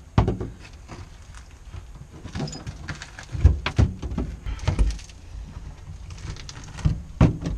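Irregular knocks, scraping and tearing as the old original interior backing is pulled and pried off the inside of a 1971 Volkswagen Super Beetle's steel body panels.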